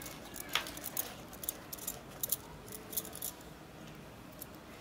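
Knife cutting jackfruit: scattered light clicks and taps, a couple a second, thinning out after about three seconds.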